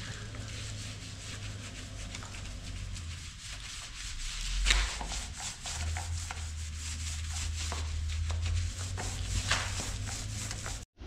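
Small paint roller rolled back and forth over a plastered wall with wet paint, a rough rubbing sound in repeated strokes, with one louder knock about halfway through.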